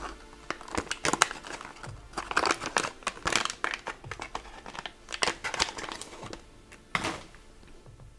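Foil-lined MRE pouch crinkling as it is peeled open and the filled French toast is slid out: a dense run of sharp crackles that stops about seven seconds in.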